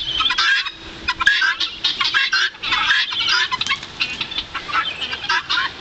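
A flock of guinea fowl calling, many short high-pitched calls overlapping in a steady chatter.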